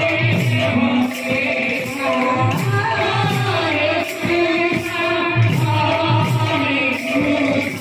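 Devotional kirtan singing, a girl's voice leading into a microphone with others joining, over a steady beat of percussion strokes.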